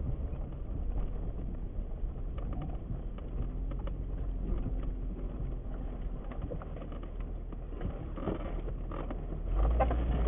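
4x4 driving slowly over a rough dirt trail: a steady low engine rumble with body and suspension rattling and clicking. The engine gets louder about nine and a half seconds in.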